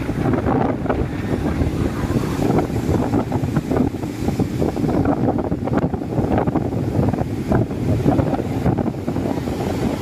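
Strong wind buffeting the microphone, over surf breaking on the shore.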